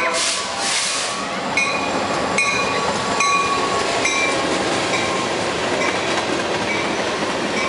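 Short freight train of two diesel locomotives and a covered hopper passing close at speed: a loud steady roar of engines and wheels on the rails, with a short high ring repeating about once a second from about a second and a half in.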